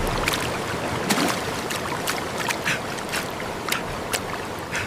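Fast-flowing floodwater rushing steadily, with irregular splashes breaking through it every half second or so.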